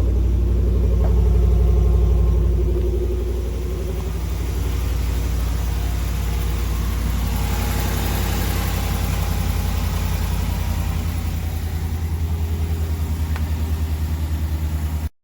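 Ram 1500's 5.7 L Hemi V8 idling cold and steady, fitted with newly replaced exhaust manifolds and free of the manifold tick, sounding like new. It runs a little louder for the first couple of seconds, then settles.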